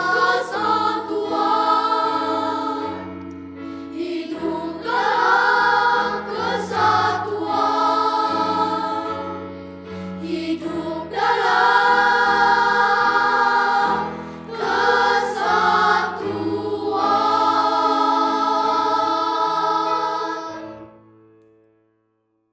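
Elementary-school children's choir singing, ending on a long held note that dies away near the end.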